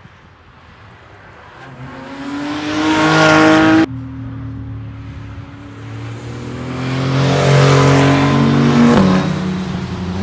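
Porsche 911 flat-six engines accelerating on track with the revs climbing. The first engine sound cuts off abruptly about four seconds in. A second engine then builds as the car approaches, getting louder, with a sudden drop in revs near the end.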